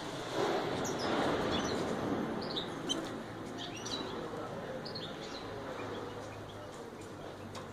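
Red canaries giving short, high chirping calls, scattered through, over a steady low hum. A rustling noise, the loudest sound, fills the first few seconds.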